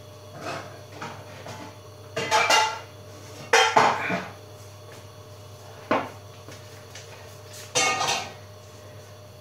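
Dishes and cutlery clinking and clattering in about five separate bursts, the loudest a little after two seconds, around three and a half seconds and near eight seconds in, over a low steady hum.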